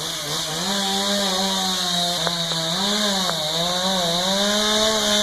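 Chainsaw engine running at high speed while cutting through a tree trunk. Its pitch sags briefly several times as it bogs under the load of the cut.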